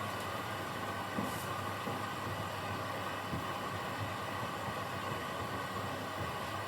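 Washing machine running through a wash cycle: a steady hum with an even whoosh of the drum and water.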